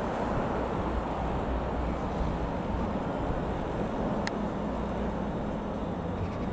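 Piper PA-28-180 Cherokee's four-cylinder Lycoming piston engine droning steadily as the light aircraft flies over, its hum coming through more clearly in the second half. A brief high chirp about four seconds in.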